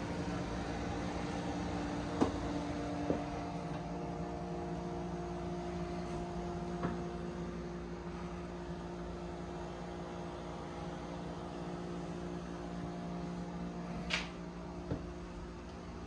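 A steady electrical or mechanical hum with several fixed pitches runs throughout, joined by a few light clicks about two, three and seven seconds in and a brief rustle near the end.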